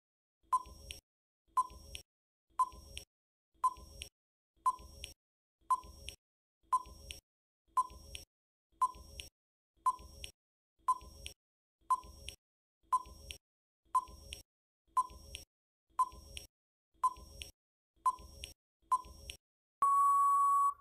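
Quiz countdown-timer sound effect: a short beep about once a second, then a longer steady tone near the end as the time runs out.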